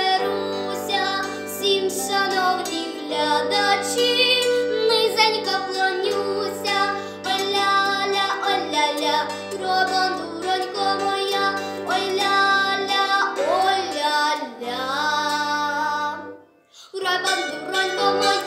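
A girl singing with bandura accompaniment: plucked strings under her voice over a steady bass line. Near the end the music stops for a moment, then picks up again.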